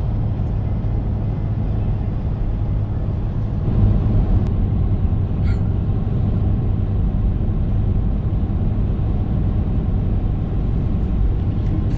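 A vehicle driving on the road: a steady low rumble of engine and road noise, slightly louder about four seconds in.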